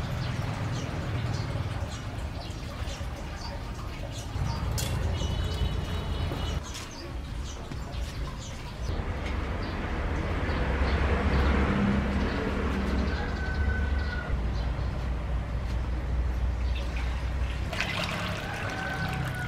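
Water poured from a jug into a metal wok, rushing and splashing, loudest near the end, over a steady low rumble. A few short bird chirps.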